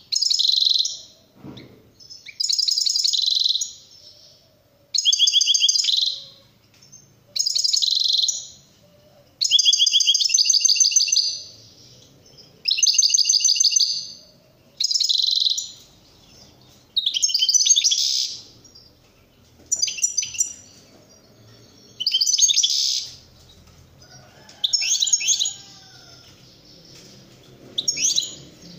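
European goldfinch singing in a cage: about a dozen bursts of fast, high trilling phrases, each a second or so long, with short pauses between. It is the song type Turkish keepers call şakşaklı.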